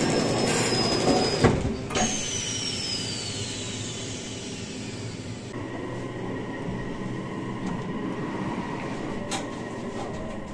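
Railway noise heard from inside an electric limited-express train at a station platform. Two knocks come about a second and a half in, then a high whine falls steadily in pitch. After that the sound settles to a quieter steady hum with faint ringing tones.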